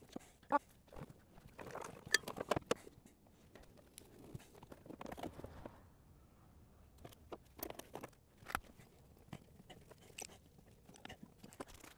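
Hand work in a car's engine bay: scattered light clicks, knocks and rustling as hoses and parts are handled, with a cluster of sharper clicks about two seconds in.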